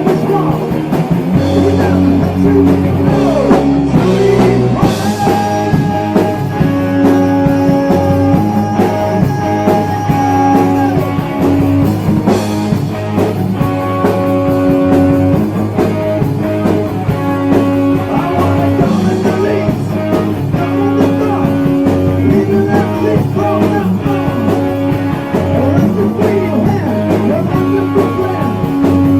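Heavy metal band playing loud and steadily, with electric guitar, bass and drums.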